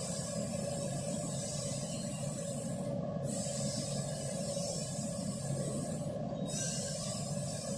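Steady hum and hiss, with faint rubbing of a rubber door seal being pressed by hand into the groove of a steam sterilizer's door frame.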